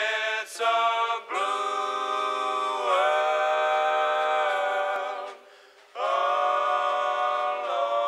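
Background music: long held choir-like vocal chords, fading out about five seconds in before a new chord swells in about a second later.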